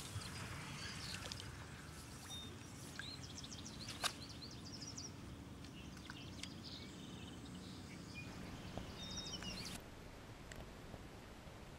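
Small birds chirping and trilling over a steady outdoor background, with a single sharp click about four seconds in. The birdsong cuts off abruptly near the end.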